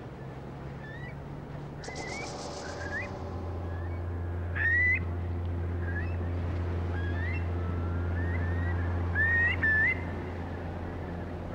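Wild birds calling: scattered short whistled calls, most rising in pitch, with a brief rapid rattle about two seconds in. A steady low hum comes in underneath about three seconds in, and the whole grows slowly louder.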